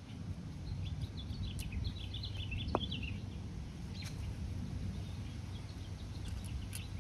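Outdoor ambience: small birds chirping in a quick cluster over a steady low rumble, with a couple of light clicks as metal brake parts are handled.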